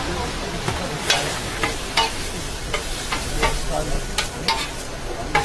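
Metal spatula scraping and clacking on a hot flat steel griddle while a chopped meat and tomato mixture fries, with a steady sizzle underneath and irregular sharp clacks about every half second.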